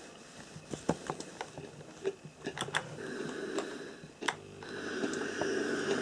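Rowenta Steamforce DW9230 steam-generator iron: scattered light clicks and ticks as it works on the cloth, then a sharp click about four seconds in, followed by a steady hiss of steam.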